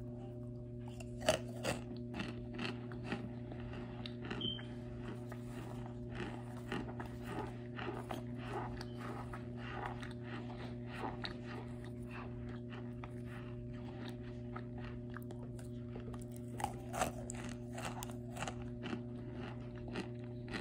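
Chunks of cornstarch being bitten and chewed, a run of crisp crunches, loudest near the start and again near the end. A steady low hum runs underneath.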